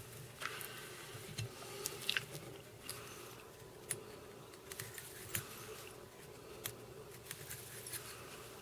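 Faint, irregular ticks, clicks and rustles of fingers and small metal tools working a salmon fly in a fly-tying vise while a hackle collar is wound and stroked back, over a faint steady hum.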